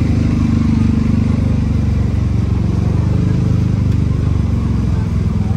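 An engine running steadily close by, a low, even rumble with a rapid pulse, like a motorcycle idling.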